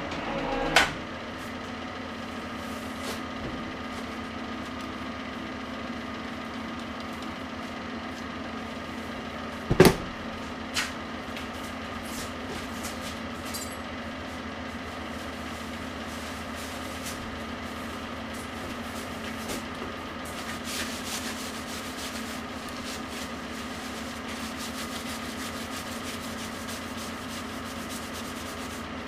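Värnamo metal shaper: its stroking stops with a click about a second in, and the electric motor runs on with a steady hum. A sharp knock comes about ten seconds in, with a smaller one a second later. Near the end there is light rubbing of a cloth wiping the freshly machined steel face of the anvil.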